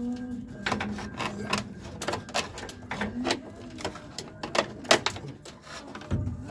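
Plastic gauge cluster housing with metal brackets being handled and fitted into a 1968 Camaro dash, giving a run of irregular sharp clicks, taps and rattles.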